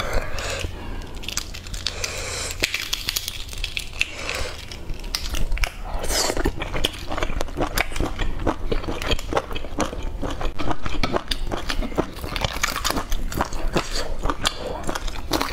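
Close-miked eating of a hard-boiled egg: biting and wet chewing with small crackles and clicks of the mouth. Near the end, eggshell crackles as another boiled egg is cracked and peeled by hand.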